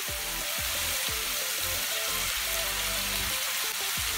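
Chicken pieces sizzling in a hot wok, a steady hiss, with background music playing under it.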